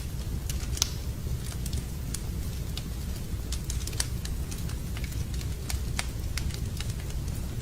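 Wood fire burning in a fireplace, crackling and popping at irregular intervals over a steady low rumble.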